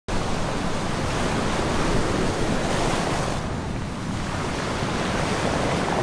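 Ocean surf: waves breaking and foaming, a steady rushing noise. The hiss eases a little past halfway.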